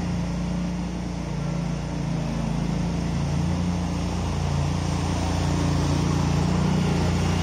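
Engine of a Feucht OB100 self-propelled harvester running steadily as the machine drives slowly over concrete, a low, even hum that grows slightly louder as it comes closer.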